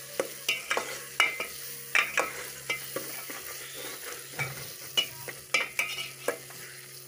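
A metal ladle stirring potatoes frying in an aluminium pot: irregular clinks and scrapes of the ladle against the pot, about one or two a second, over the sizzle of the frying.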